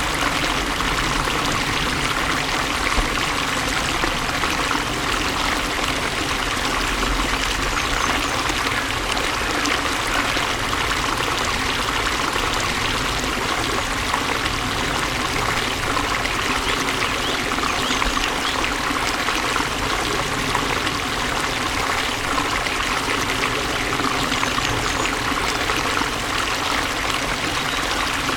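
Flowing water running steadily, an even splashing and trickling rush.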